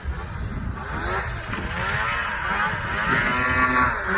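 Snowmobile engine revving up and down several times in quick succession as the throttle is worked.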